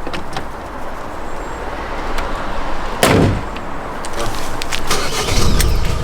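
A van door shutting with one loud thump about three seconds in, among clicks and handling noises from inside the cab. A low rumble builds near the end.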